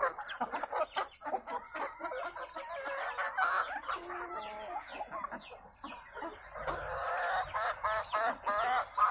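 A flock of hens clucking continually as they feed, many short calls overlapping one another.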